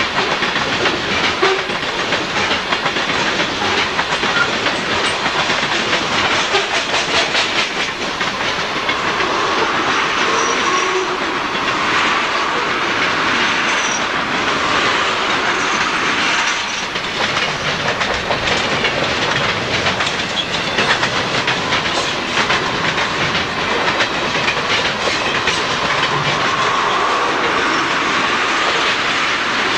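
Freight cars of a long train rolling past at close range: a steady, loud rumble with the clatter of steel wheels over rail joints.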